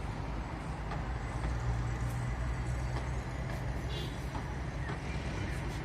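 Fire truck's engine running steadily, a low even drone.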